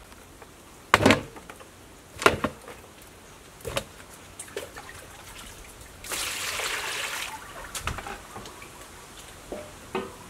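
Water poured from a plastic jug into a stainless steel basin holding raw chicken, a splashing pour lasting just over a second. Before it come three sharp knocks, spaced over the first few seconds, and a few lighter knocks follow it.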